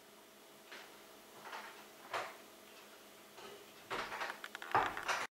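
Faint, short rustles and scuffs of a puppy shifting about on a person's lap against clothing: a few scattered ones, then a closer cluster near the end.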